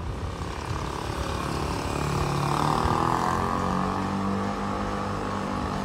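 A motor vehicle passing close by on the street, its engine and tyre noise swelling to a peak about three seconds in and then easing off, with the engine's hum rising in pitch as it goes.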